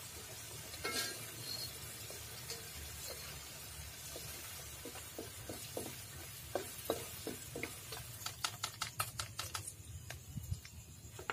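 Hot oil sizzling in a wok as pieces of jamur so (melinjo mushroom) fry, stirred with a wooden spatula. In the second half a run of quick clicks and knocks as a perforated steel strainer scoops the mushrooms out against the wok, and the sizzle drops away near the end.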